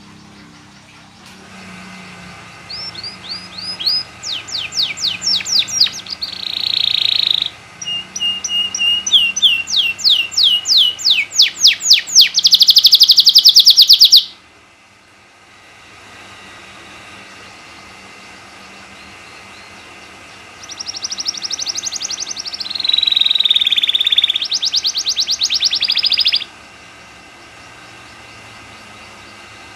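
Domestic canary singing two long bouts of song made of rapid repeated notes and trills, the first ending in a loud, very fast roll, with a pause of several seconds between the bouts. It is the vigorous, full song ('gacor') that keepers play to tutor and stir other canaries into singing.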